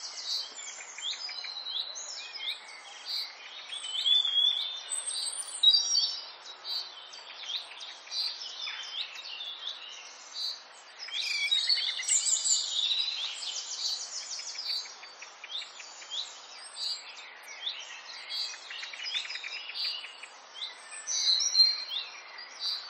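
A chorus of several songbirds: many short chirps, whistled notes and fast trills overlapping one another, over a faint steady hiss.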